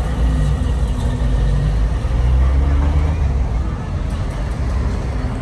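Steady low rumble of a vehicle on the move.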